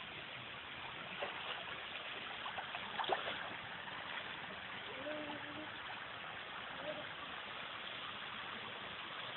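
Steady rush of running pool water, with a few brief splashes as a swimmer climbs out of the water onto the rocks.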